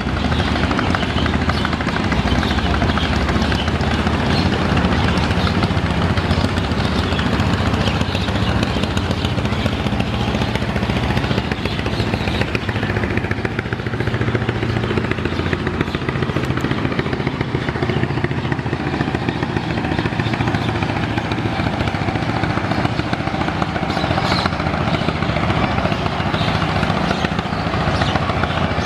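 River passenger launch's engine running steadily at speed, with a broad rushing noise over it.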